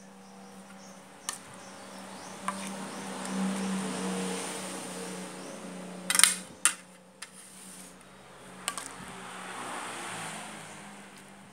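A utensil stirring kangkong and sardines in a pan: a rustling, scraping noise that swells twice, with a few sharp metal clinks against the pan, the loudest about six seconds in. A steady low hum runs underneath.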